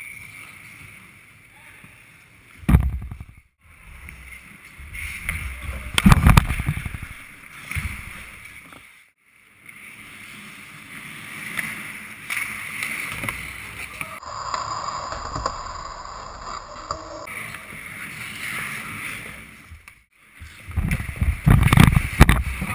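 Ice hockey play heard from a camera mounted in the goal net: skates scraping the ice and sticks clattering, with sharp heavy knocks about three and six seconds in and a run of loud thumps near the end as the net and camera are jolted.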